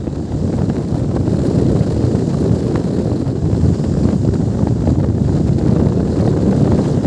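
Strong wind buffeting the microphone: a loud, heavy low rumble that grows a little louder over the first second or so and then holds steady.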